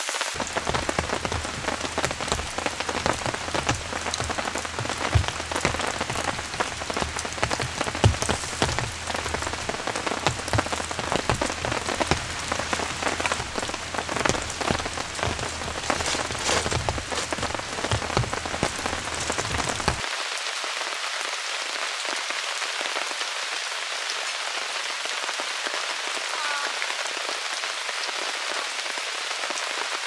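Steady rain, with many separate drops striking a surface close by for about twenty seconds; then the sound changes abruptly to a smoother, softer rain hiss.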